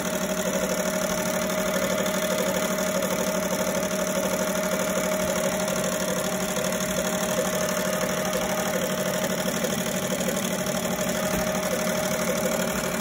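Happy multi-needle embroidery machine running, stitching with a rapid, even clatter over a steady hum.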